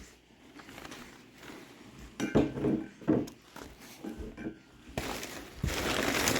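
Gift items being handled and set down: a few light clinks and knocks, then a steady rustle of packaging for the last second or so.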